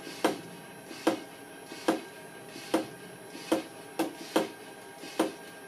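Hand-operated vacuum pump being worked in steady strokes, a sharp click at each stroke about every 0.8 s, with two quick ones close together near the end. The strokes draw down the static pressure in the altimeter's sealed case to simulate a climb in altitude.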